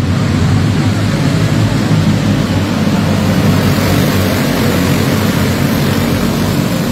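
A pack of racing karts' small engines running at full speed around a dirt oval, a continuous buzzing that swells as karts pass close by about three to four seconds in.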